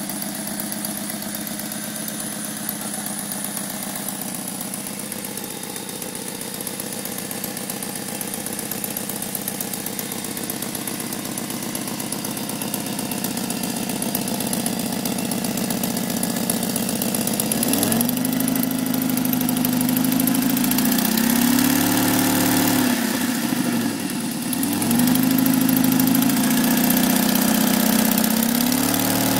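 BMW E36 316i Compact's four-cylinder engine idling, then revved up and held at higher speed about two-thirds in, dropping back briefly and rising again near the end. The owner is chasing a strange noise from the car.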